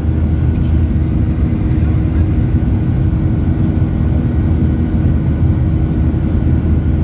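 Airplane engines running with a loud, steady drone and several steady hums over a noisy rush.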